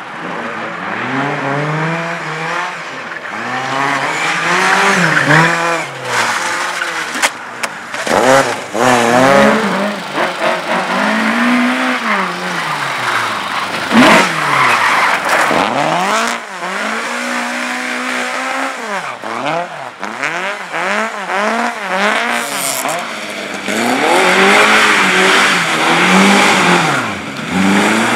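Race car engine revving hard, its pitch climbing and dropping again and again as the car is driven flat out through a slalom course, with tyres skidding and a few sharp knocks.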